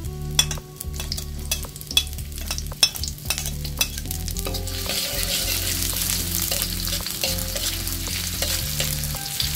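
Sliced shallots and garlic sizzling in hot oil in a metal wok, with sharp clicks and scrapes of a metal spatula against the wok as they are stirred. The sizzle grows louder about halfway through.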